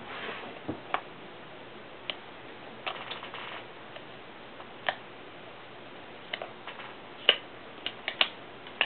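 Scattered light clicks and taps of fingers and fingernails on a MacBook's plastic case and the hard drive in its bay, one at a time with pauses between, the sharpest ones coming in the last couple of seconds.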